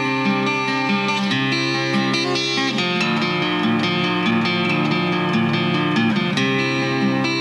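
Instrumental passage of a song, led by a plucked acoustic guitar, with no singing; the notes change several times a second.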